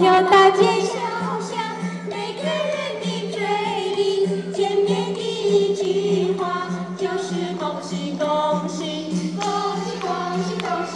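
Choir of adults and children singing a song together in chorus, starting abruptly at the opening.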